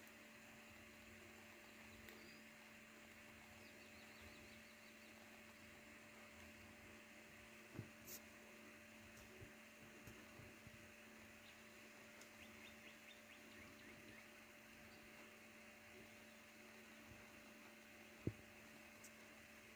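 Near silence: a faint steady hum under low background noise, with a few faint clicks and one sharper click near the end.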